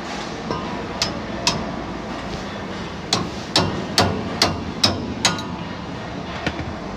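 Hammer blows on metal with a ringing clang: two strikes, then a run of six at about two a second, then one lighter strike.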